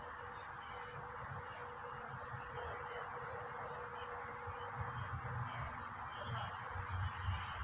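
Steady outdoor ambience of insects chirping over a constant hiss, with low rumbles in the second half.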